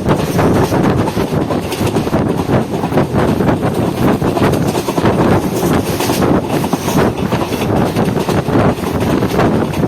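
Express passenger train running along the track, a steady rumble and rattle of the coach with wind buffeting the microphone.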